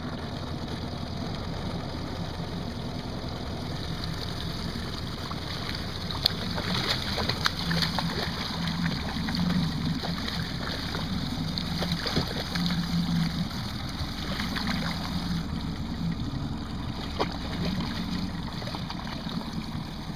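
Boat motor running steadily at trolling speed. From about six seconds in, a hooked fish thrashes and splashes at the surface beside the boat, with scattered sharp splashes.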